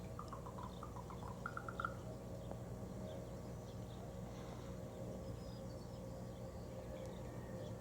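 A crow making an odd call: a quick run of about ten short, clipped notes in the first two seconds, rising slightly in pitch and getting louder toward the end. A steady low hum runs underneath, with faint high chirps scattered through.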